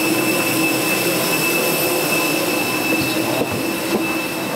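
Steady rush of air with a constant high whine and a lower hum: a parked Airbus A320's air-conditioning system running at the cabin door. A few light knocks come near the end.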